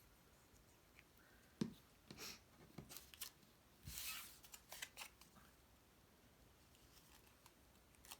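Paper card pieces being handled on a work surface: a sharp tap about one and a half seconds in, then a few seconds of paper rustling and small clicks, and one more click near the end.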